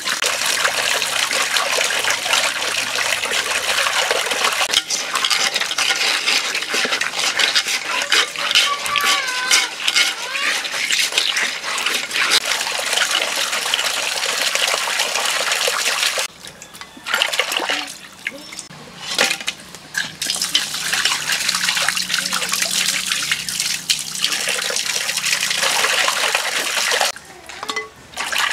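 Water pouring and splashing into a clay bowl over whole climbing perch as they are rinsed and scrubbed by hand. The pouring stops briefly a few times in the later part.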